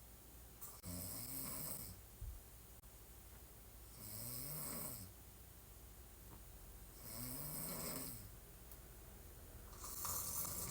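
A woman snoring hard while lying on her back: a snore about every three seconds, four in all, each lasting about a second. The last, near the end, is the loudest.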